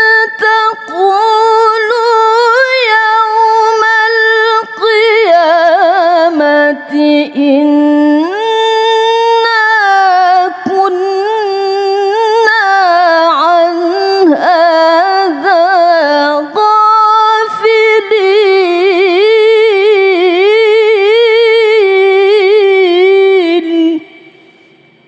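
A woman reciting the Qur'an in melodic tilawah style, solo and unaccompanied: long held, richly ornamented phrases with short breath pauses between them. She stops about a second before the end, leaving a brief fading echo.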